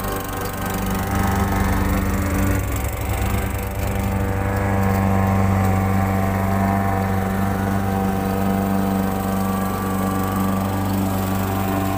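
Gasoline walk-behind lawn mower engine running at a steady pitch while the mower is pushed across the grass.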